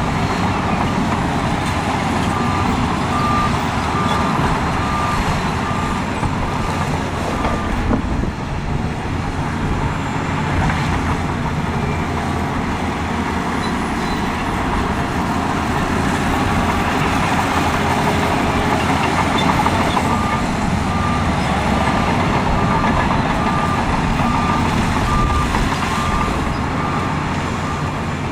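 Heavy diesel earthmoving machinery running steadily. A reversing alarm beeps about one and a half times a second for a few seconds, then again over the last eight seconds.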